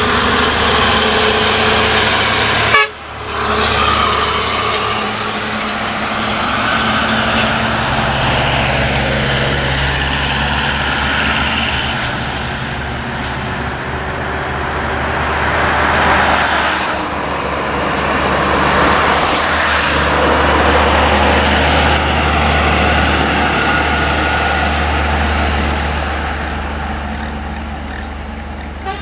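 Heavy diesel trucks, among them a MAN articulated lorry, and cars passing close by on a highway. Engine and tyre noise swells and fades as each vehicle goes past. A horn sounds in the first few seconds.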